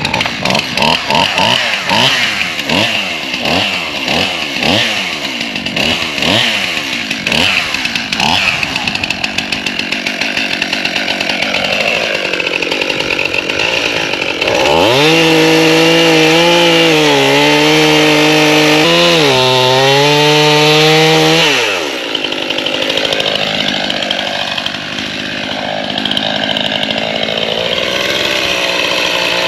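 Two-stroke chainsaw felling a dead tree: the engine is revved up and down repeatedly at first, then held at full throttle through the cut from about halfway, pitch sagging a little under load, before easing off and revving up again at the very end.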